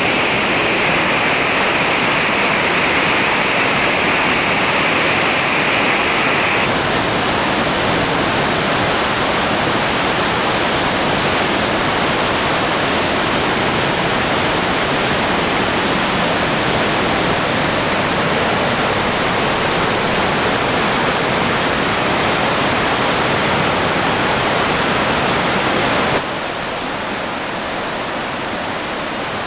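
The Bourne river in spate rushing through its gorge: a loud, steady rush of white water from a flash flood. The sound changes suddenly about a quarter of the way in, losing its hissy top, and steps down in level near the end.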